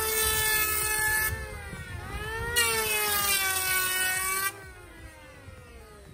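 Electric hand planer shaving the edge of a laminated cabinet panel in two passes. The motor whine dips under load and rises between cuts, then falls away as the motor winds down after the trigger is released.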